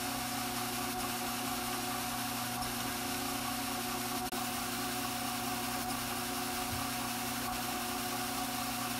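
Electric drum carder (Strauch Mad Batt'r) running with its motor turning the drums: a steady, unchanging machine hum, with one very brief dropout a little over four seconds in.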